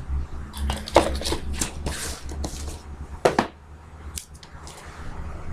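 Trading cards being handled: a string of short rustles, slides and taps as the cards from a freshly opened pack are shuffled through by hand.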